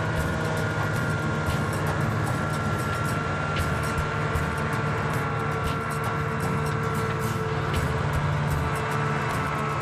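A small vehicle's engine running steadily while riding across the ice, with a constant low hum and many short rattling clicks.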